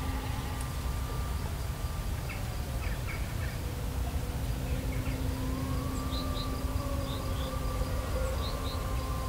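An insect buzzing close by, its hum steady with a slow waver in pitch, over a low wind rumble on the microphone. A few short bird chirps come through, a couple in the first half and a series of higher ones near the end.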